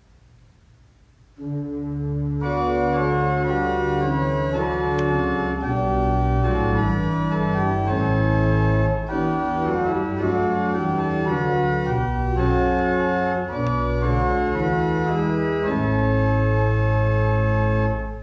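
Pipe organ playing a short passage of held chords over a deep pedal bass, starting about a second and a half in and stopping cleanly just before the end. It leads into the Gospel reading.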